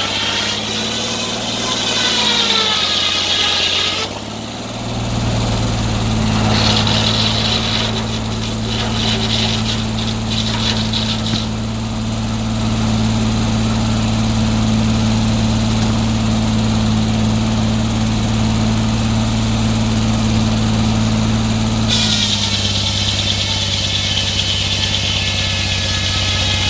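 Sawmill engine running steadily. Its pitch rises and falls in the first few seconds, then it settles into a deeper, steady hum with a rasping edge for a few seconds. Near the end the hum drops back and a higher whine returns.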